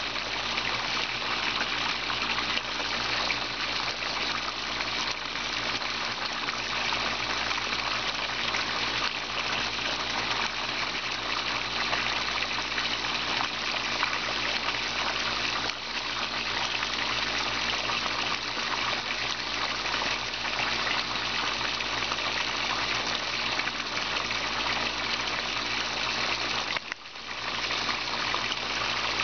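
Water pouring from a pipe into a garden tank pond: a steady gushing splash on the water's surface, dipping briefly once near the end.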